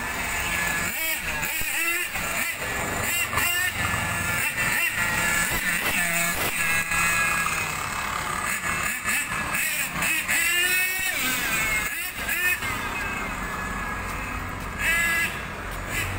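Radio-controlled car's motor revving up and down as it is driven along a street, a high whine that rises and falls repeatedly, over the noise of passing road traffic.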